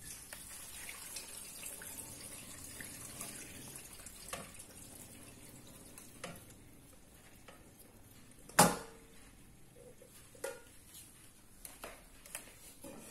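Chicken stock poured from a metal pot through an aluminium colander in a steel sink, the liquid splashing and running steadily for about six seconds. Light clinks of metal on metal, and one sharp, loud clank a little past the middle, then a few smaller knocks.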